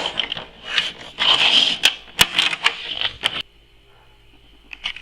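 Rustling and scraping of box packaging, with sharp clicks and clacks as plastic DVD cases are handled. It stops about three and a half seconds in, and a few light clicks follow near the end.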